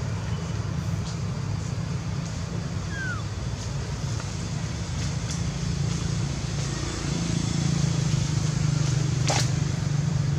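A steady low rumble that grows a little louder about seven seconds in, with a short faint falling chirp about three seconds in and a sharp click near the end.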